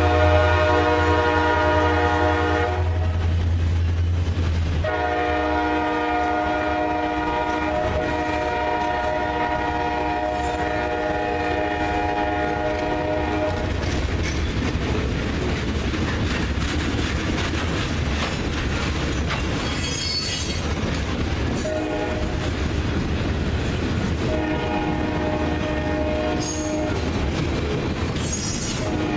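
EMD SD40-2 locomotive blowing its horn over the steady rumble of its two-stroke diesel as it pulls a ballast train: two long blasts, a short one, then another long one, the pattern of a grade-crossing signal. Wheels squeal on the rails at times.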